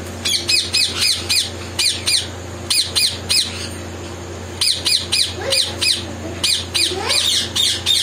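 Sun conures screeching: rapid series of harsh, high-pitched calls, several to a burst, with short pauses between bursts. A steady low hum runs underneath.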